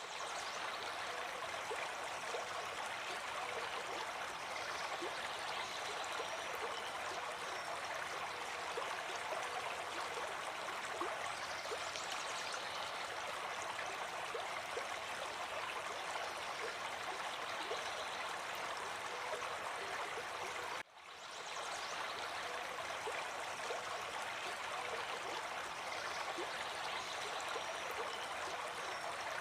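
River water flowing steadily, an even continuous water noise. About two-thirds of the way through it drops away for a moment and then comes back.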